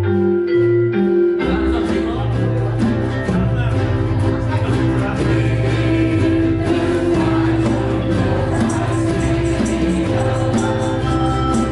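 A ukulele ensemble with drums, electric guitar and keyboard playing a country ballad. The music starts suddenly, and the full band comes in about a second and a half in.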